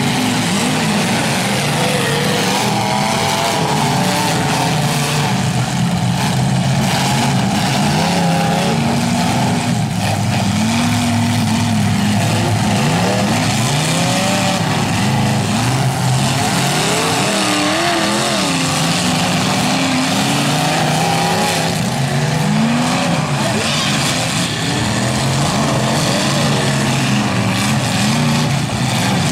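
Several demolition-derby cars' engines revving up and down at once, loud and continuous.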